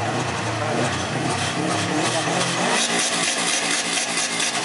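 A modified car's exhaust running with a steady low note, with a rapid crackle over it from about two seconds in.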